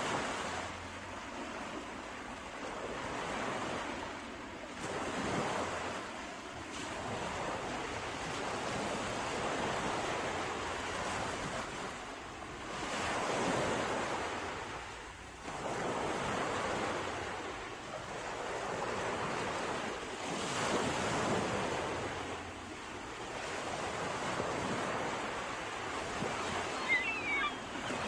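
Sea waves breaking and washing on the shore, swelling and fading in slow surges every few seconds.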